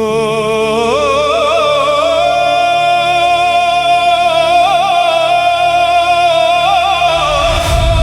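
Devotional song intro: a single voice holds a long sung "ho" with wavering, ornamented pitch over a sustained drone accompaniment. A deep low rumble swells in near the end.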